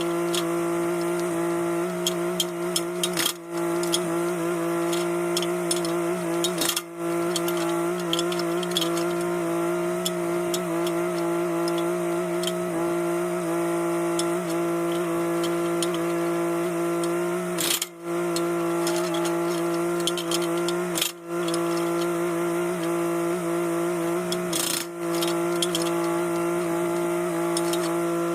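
Mini excavator's engine running at a steady pitch, with scattered light clicks over it. The sound drops out briefly five times.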